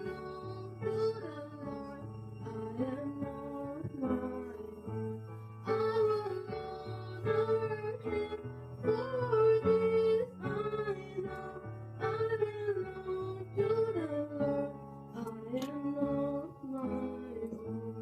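Female voice singing a slow melody over strummed acoustic guitar chords.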